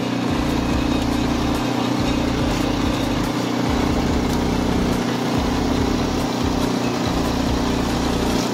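A motor running steadily with a constant hum.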